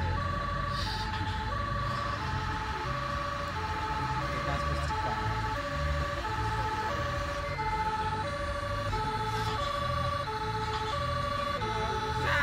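Electronic fire-engine siren from a radio-controlled model fire truck's sound module: short steady tones stepping between three pitches in a repeating sequence, over a low rumble.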